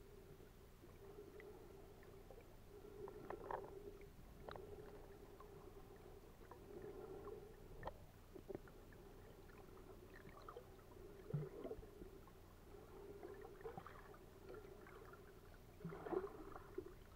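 Faint, muffled underwater sound of shallow seawater heard through a camera's waterproof housing: a steady low wash of moving water with scattered small clicks and crackles, busier near the end.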